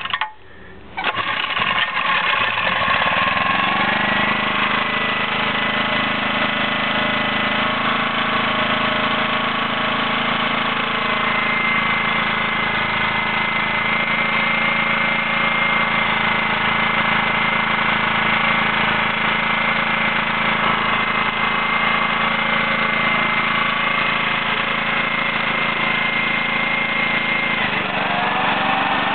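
Rockworth petrol generator's small engine catching about a second in, settling within a couple of seconds and running at a steady speed; near the end the engine note drops to a lower pitch.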